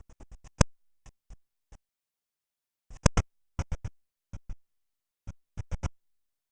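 A series of short, sharp knocks and clicks in irregular clusters, with dead silence between them. The loudest come about half a second in and again around three seconds in.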